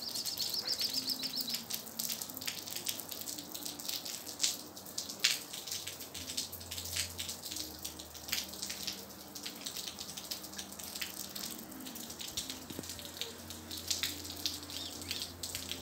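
Water dripping irregularly: a scatter of sharp drip ticks, as from wet eaves and railings in falling snow and rain. A short high trill sounds near the start.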